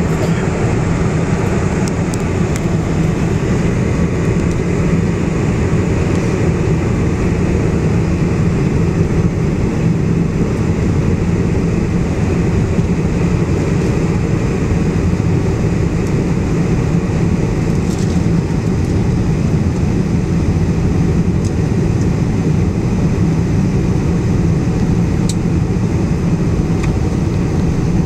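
Boeing 747-400 on approach: a steady, unbroken drone of engine and airflow noise, heaviest in the low range.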